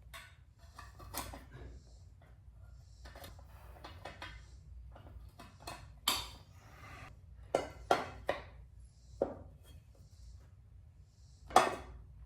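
Irregular metallic clinks and knocks of hand tools against a motorcycle's front sprocket parts as a stuck pin is pulled at. The loudest knock comes near the end.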